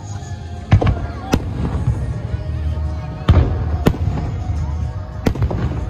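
Aerial fireworks shells bursting: five sharp booms, two close pairs and a single, over a continuous low rumble.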